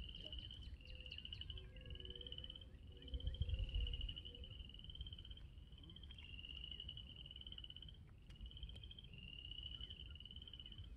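Frogs calling in chorus: high trills about a second long, one after another with hardly a break. A low rumble comes about three seconds in.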